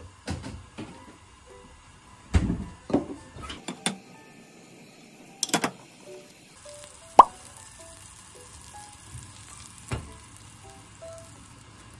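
Butter starting to sizzle as it melts in a square nonstick frying pan, a faint hiss from about halfway in, with several sharp knocks and clicks of pan and kitchen handling, the loudest a little after halfway. Light background music plays throughout.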